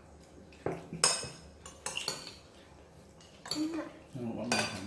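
Metal spoons clinking and scraping on ceramic plates as people eat rice and minced meat, with a few sharp clinks, the loudest about a second in.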